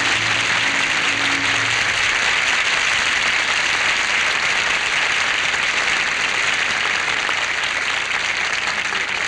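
Studio audience applauding, loud and steady. The orchestra's last held chord dies away about two seconds in.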